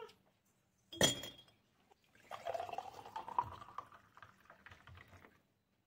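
A sharp glass clink about a second in. Then watermelon juice is poured in a stream into a glass mason-jar mug, the pouring sound rising in pitch as the jar fills.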